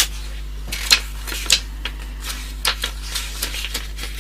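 Irregular light clicks and short rustles of small objects being handled, over a steady low hum.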